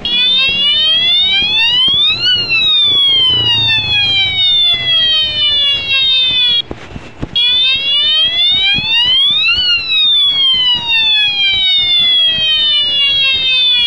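Battery-powered police-style bicycle siren horn wailing: a slow rise for about two seconds then a long fall, cut off briefly about seven seconds in and then starting again with a second rise and fall.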